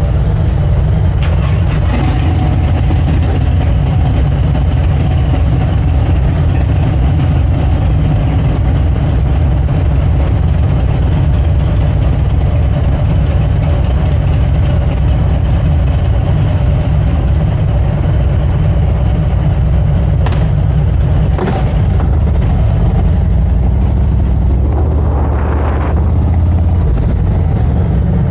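A vehicle running steadily with a loud, constant low rumble. There are a couple of short clicks about two-thirds of the way in and a brief rising sound near the end.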